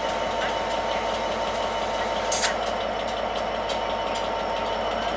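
Class 67 diesel locomotive's two-stroke V12 engine idling steadily, with a thin whine above it and a brief hiss of air about halfway through.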